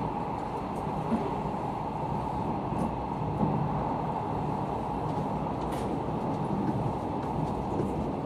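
Running noise of a locomotive-hauled sleeper coach heard from inside: a steady low rumble of wheels on rails with a few faint knocks.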